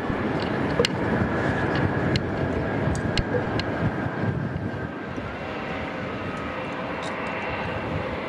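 Airbus A321 jet engines running at taxi power: a steady rumbling rush with a faint high whine, with a few sharp ticks in the first half. The level drops slightly about five seconds in.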